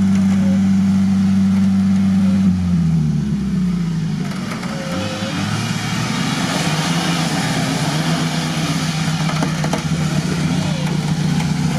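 Nissan Patrol's engine held at steady high revs in the mud, then the revs drop about two and a half seconds in and it runs on lower. A rushing noise builds from about four and a half seconds in.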